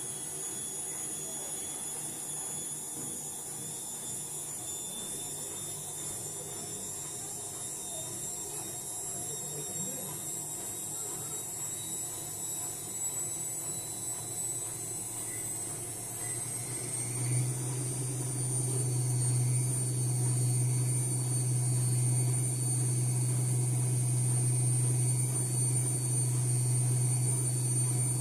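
Electric appliance motor humming steadily, with a steady high whine over it; a louder low hum starts about seventeen seconds in and holds.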